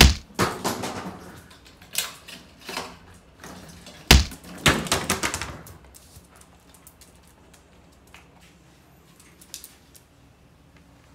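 Plastic water bottles knocked and clattering on a wooden floor. There is a sharp knock at the start and another about four seconds in, each followed by about a second of rattling clatter, then a few light taps. The sounds die down after about six seconds.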